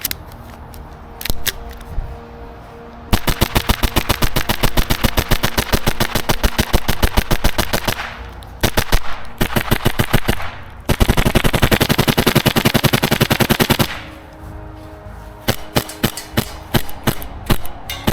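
HPA-powered Tokyo Marui Hi-Capa 5.1 airsoft pistol firing, fed from a 250-round spring-loaded mid-cap magazine through an adapter: a few single shots, then three long, very rapid strings of shots, then scattered shots near the end.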